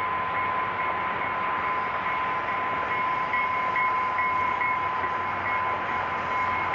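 UTA FrontRunner double-deck commuter train running past at a distance, a steady wash of train noise, with a constant high tone throughout.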